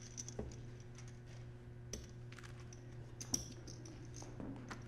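Faint, scattered light clicks over a steady low hum.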